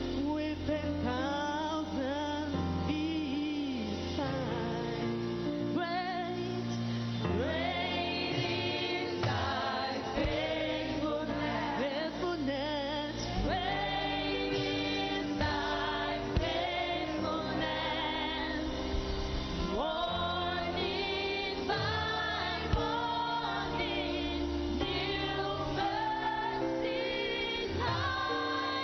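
Gospel worship music: a singer holds long, wavering notes with gliding pitch over sustained chords.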